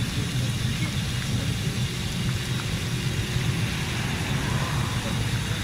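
Fish deep-frying in a large karahi of oil over an open wood fire: a steady hiss of sizzling oil over a steady low rumble.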